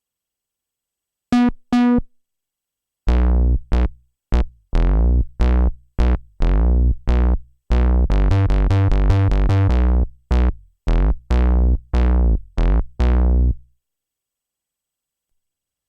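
Sequential Prophet Rev2 analog synthesizer playing a bass-heavy patch: two short notes, then a rhythmic run of deep, punchy notes, each starting bright and quickly dulling as it decays, stopping a couple of seconds before the end, with dead silence around them from the direct recording.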